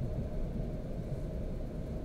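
Steady low rumble inside a moving electric commuter train carriage.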